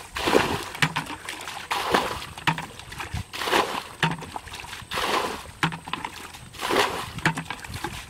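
Water being bailed out of a muddy ditch with a plastic bucket: a scoop followed by a splashing pour onto the bank, about every second and a half.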